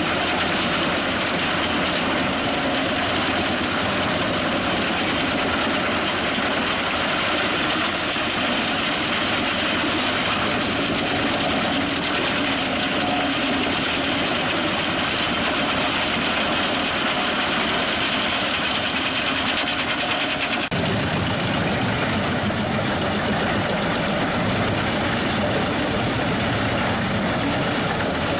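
Pezzolato PTH 1000/1000 G drum wood chipper running steadily off the PTO of a 360 hp New Holland tractor, with the tractor's engine under it. About 20 seconds in, the sound shifts suddenly to a deeper, heavier note.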